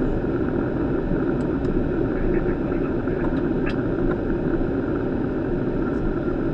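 Steady rushing noise on a Boeing 737 flight deck in flight: air flowing past the nose and windshield mixed with engine noise. A few faint clicks sound over it.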